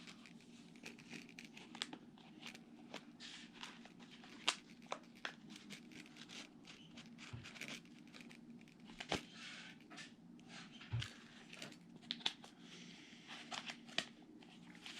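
Faint scattered clicks and rustling from the multitools and their sheaths being handled, over a steady low hum.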